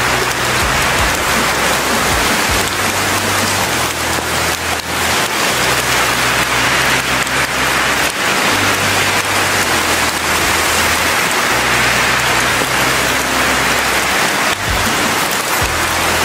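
Steady, loud rain sound over deep, held low notes that change every few seconds.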